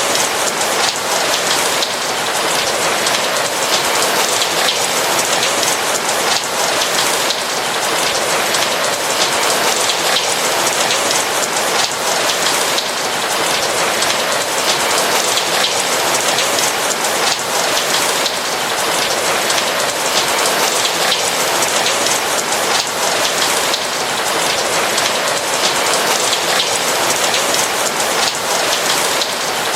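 Steady rain, an even hiss with a dense patter of raindrops hitting a roof, unchanging throughout.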